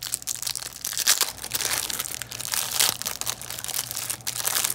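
Plastic wrapper of a 2018 Topps baseball card hanger pack being crinkled and torn open: a dense run of irregular crackles.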